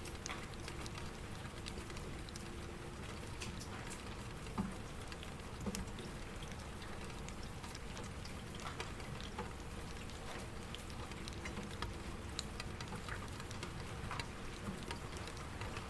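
Rain falling steadily, an even hiss of drops with scattered louder individual drops hitting a surface.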